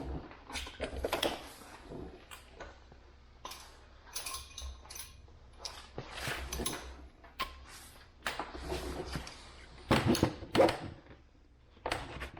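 Hand tools and metal parts being handled: irregular clinks, knocks and rattles, with a louder cluster of knocks near the end.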